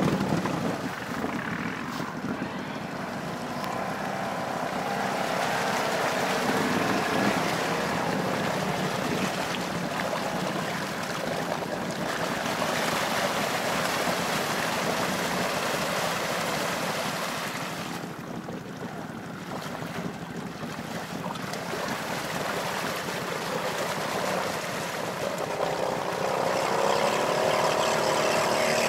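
ATV engine running under load while the quad ploughs through water, with a continuous wash of splashing. The engine note rises again near the end.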